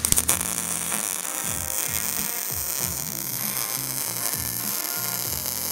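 Background music with a rhythmic bass line, over the steady buzzing crackle of a wire-feed welder laying a bead.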